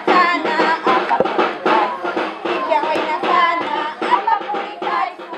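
Music with a steady percussive beat, beginning to fade near the end.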